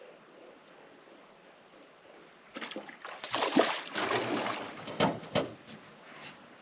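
Water splashing and sloshing right beside a boat's side for about three seconds after a quiet start, with two sharp knocks near the end.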